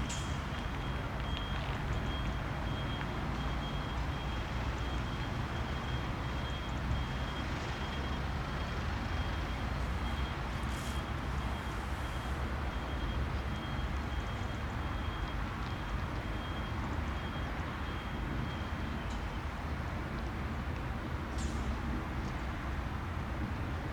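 Boeing 737-400's CFM56-3 turbofan engines running, a steady rushing noise with a high, steady whine that stops about 19 seconds in.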